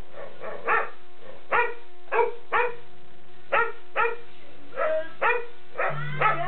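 Boxer dog barking over and over in reaction to a song playing, a string of about a dozen short, pitched barks spaced roughly half a second to a second apart.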